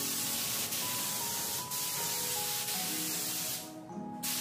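Gravity-feed paint spray gun with a 1.3 tip, fed at about 29–30 PSI, spraying black base coat: a steady hiss of air and paint that stops about three and a half seconds in, then a short burst near the end. Background music plays under it.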